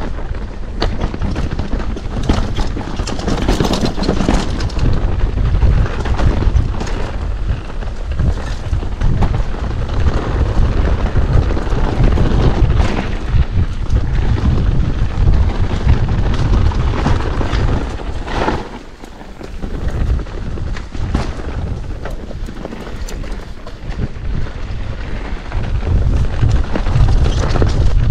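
Mountain bike descending a rough dirt trail, heard from a rider-mounted action camera: a heavy low rumble of wind buffeting the microphone, with constant clattering and rattling of the bike over roots and rocks. The rumble eases briefly about nineteen seconds in.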